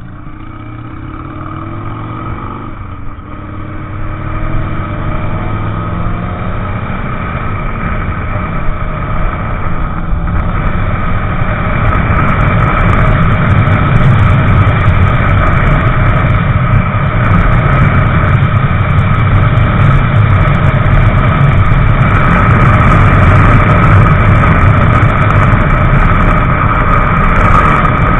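Motorcycle engine pulling up through the gears, its pitch rising and dropping at a shift about three seconds in, then settling into a steady ride at speed, drowned in loud wind rush on the microphone.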